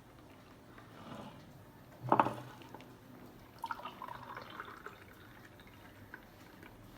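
Freshly blended pineapple juice being poured into a glass, a faint trickle and drip, with one brief clunk about two seconds in.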